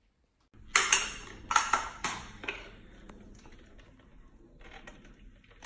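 Metal frame tubes and hard plastic parts of a baby cradle swing knocking and clinking together as they are handled and fitted: a quick series of sharp clanks with a short ring in the first couple of seconds, then quieter knocks and handling.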